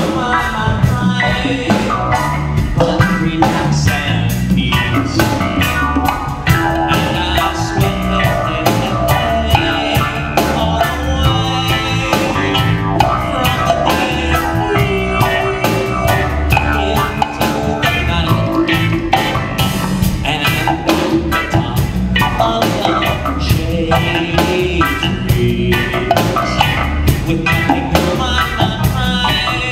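Live rock band playing: drum kit, electric guitar, electric bass and keyboard, with a man singing lead.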